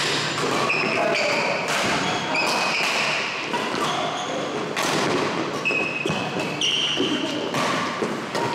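Badminton doubles rally: sharp racket hits on the shuttlecock and thudding footsteps, with many short, high squeaks of sneakers on the court floor.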